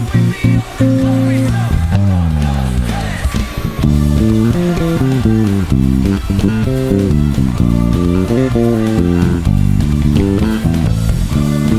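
Electric bass guitar playing a busy line: short clipped notes at first, a long slide down in pitch about two seconds in, then quick runs of notes.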